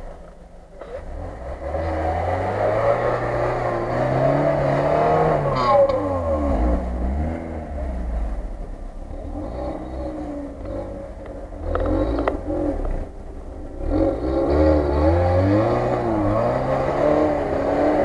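Lada Niva's engine revving up and down in repeated long surges under heavy load as the car climbs a rutted snow slope.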